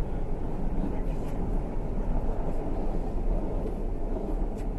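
Steady low rumble of a Tyne and Wear Metro train running, heard from inside the carriage, with a few faint clicks.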